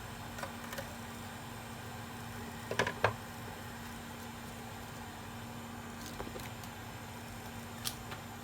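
A few light clicks and taps from small tools and parts being handled at an electronics repair bench, with a louder pair of clicks about three seconds in, over a steady low hum.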